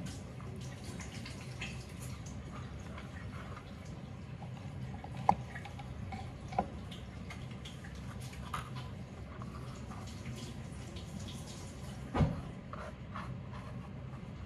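Small soft taps and clicks of chopped garlic pieces being picked up and pressed into a silicone ice-cube tray on a stone counter. A few sharper knocks stand out, the loudest about five seconds in and about twelve seconds in, over a steady low hum.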